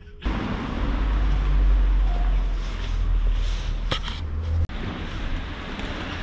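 Outdoor town-street noise: a steady low rumble with a haze of noise above it, with one sharp click about four seconds in. The sound changes abruptly just before five seconds in.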